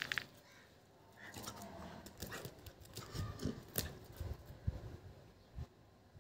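A Labrador retriever moving about, with scattered soft clicks and low thumps at an irregular pace.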